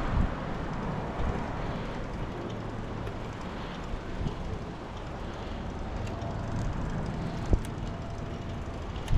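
Steady wind and road rumble from riding a bicycle, with a single sharp knock about seven and a half seconds in.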